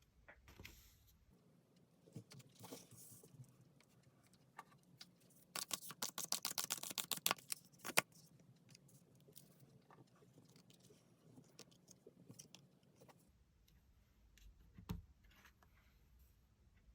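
Tarot cards being handled and shuffled, with light scattered clicks and a quick run of rapid card clicks about six seconds in, ending in a sharp snap. A single soft knock follows near the end.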